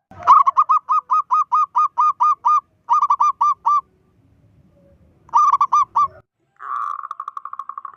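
Zebra dove (perkutut) cooing in runs of rapid staccato notes, about five a second, with short gaps between the runs. Near the end comes a harsher, buzzier run of quick pulses.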